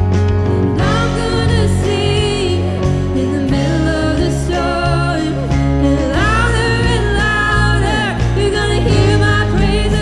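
Worship song: a voice singing a melody over instrumental accompaniment with sustained chords and bass notes, the singing coming in about a second in.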